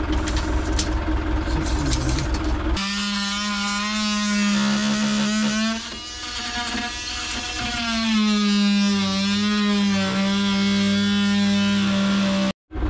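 Telehandler engine running steadily for about three seconds, then cut off abruptly by background music with a sustained low note under wavering melodic lines. The music stops suddenly near the end.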